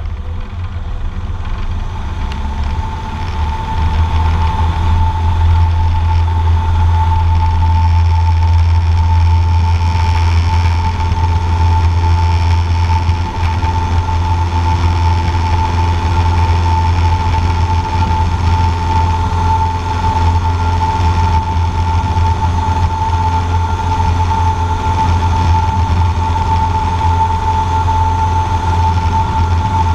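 Cessna 150J's four-cylinder Continental O-200 engine and propeller heard from inside the cabin, coming up to takeoff power over the first few seconds and then holding a steady, loud drone through the takeoff roll. A steady high whine sits above it.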